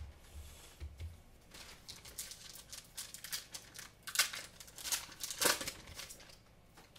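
Foil Pokémon booster pack wrapper crinkling and being torn open, with two louder rips about four and five and a half seconds in.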